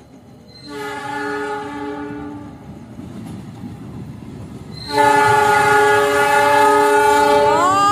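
Diesel locomotive's multi-tone air horn sounding twice as the train approaches: a short blast about a second in, then a longer, much louder blast from about five seconds in whose pitch rises just before it cuts off. The rumble of the train's wheels on the rails builds underneath.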